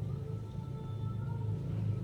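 Background music: a low steady drone with a few faint held higher notes.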